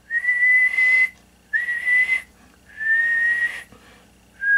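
A man whistling one steady high note into a CB radio microphone, in separate blasts of about a second each: three, with a fourth starting near the end. The whistling is a modulation test, driving the radio's audio so its peak output can be read on the watt meter.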